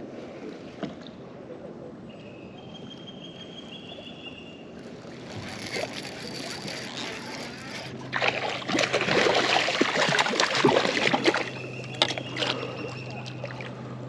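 Kayak paddle strokes splashing in river water, loudest in a run of strokes from about eight to eleven seconds in.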